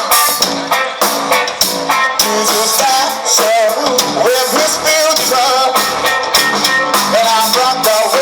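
A band playing rock music: a sung melody over guitar and drums with a steady beat.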